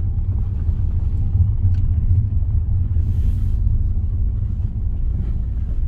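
Car's road and engine rumble heard inside the cabin while driving slowly over an unplowed, snow-covered road, with a brief hiss about three seconds in.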